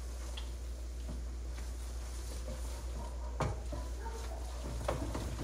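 Light clicks and knocks of kitchen utensils and cookware over a steady low hum, with one sharper knock about three and a half seconds in.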